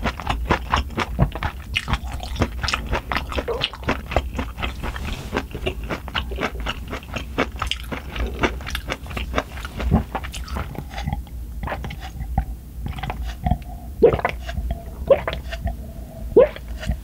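Close-miked chewing of a mouthful of food, with many quick mouth clicks. Near the end come a few louder gulps as water is drunk from a glass.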